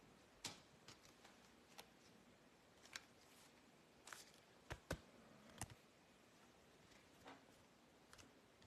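Near silence with faint, scattered clicks and taps of trading cards being handled, about ten in all at irregular intervals.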